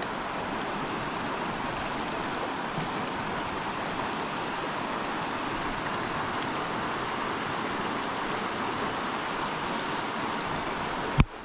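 Steady rush of stream water running over rapids. Near the end there is a single sharp click, after which the water sound drops away sharply.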